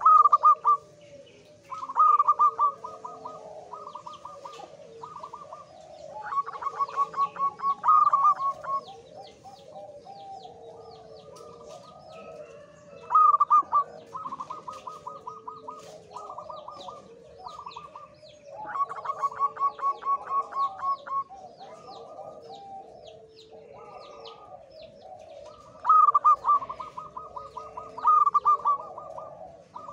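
Male zebra dove (perkutut) in breeding condition cooing: repeated phrases of quick, clipped notes at one pitch, a new phrase every few seconds, over softer, lower bird calls underneath.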